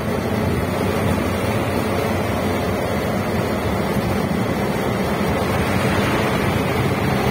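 Auto-rickshaw running along a road, heard from inside its open-sided passenger cab: steady engine noise mixed with road and traffic noise.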